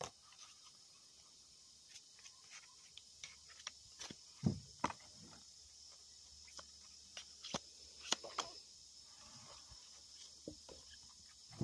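Tarot cards being shuffled and handled: irregular soft snaps and clicks of the cards, with a duller thump about four and a half seconds in. A steady high insect drone runs underneath.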